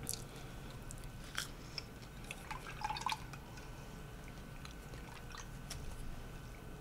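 Close-miked drinking sounds from a cocktail: soft sips and swallows with small wet mouth clicks, the busiest stretch about three seconds in.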